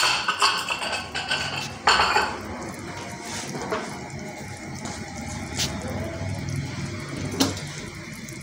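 Stock with vegetables and shredded chicken bubbling at the boil in a steel pot, with several sharp metal clinks against the pot, the loudest about two seconds in.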